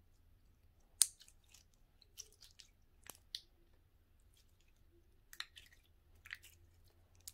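Gooey, moist slime being squeezed and pulled in the hands, giving faint scattered sticky clicks and small squishes, the sharpest about a second in.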